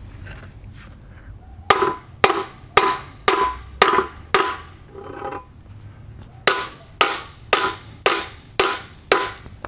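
Small sledgehammer striking a steel lower control arm, driving a polyurethane suspension bushing into its eye with no press. Two runs of six blows, about two a second, each with a short metallic ring, with a pause between the runs.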